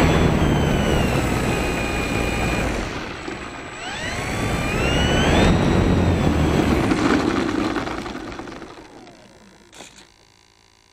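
Durafly Tundra V2's electric motor and propeller, picked up by the onboard action camera: throttled up twice in a rising whine with a rumble of prop wash, then winding down and stopping about nine seconds in. A small click comes near the end.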